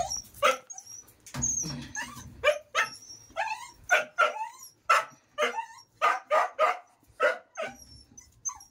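Dogs barking and yipping in quick succession, two or three sharp barks a second, with a few brief pauses. The barking comes from dogs that are worked up and angry.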